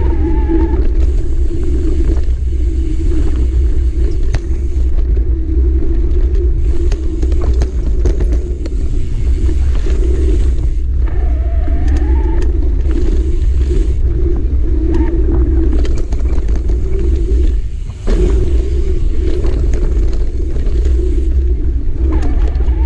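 Wind buffeting a moving camera's microphone, with tyre noise rumbling over a dirt forest singletrack as a bike is ridden along it at speed, and scattered knocks from bumps in the trail. A brief squeal comes about eleven seconds in, and the rumble drops for a moment a little later.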